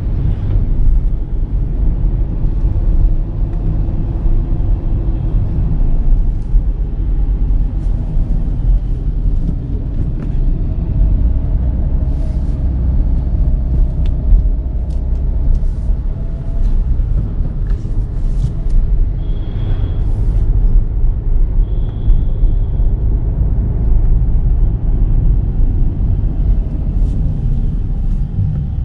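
Volkswagen Virtus GT's 1.5-litre turbocharged four-cylinder petrol engine and road noise as the car is driven: a steady low rumble with scattered light clicks and knocks, and two short high tones a little past halfway.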